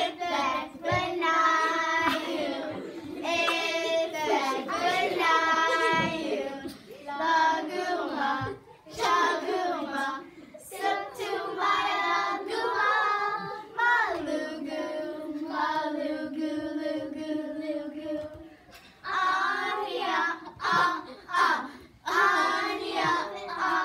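A group of young girls singing a traditional Alaska Native song together, in held, pitched phrases with short breaks between lines.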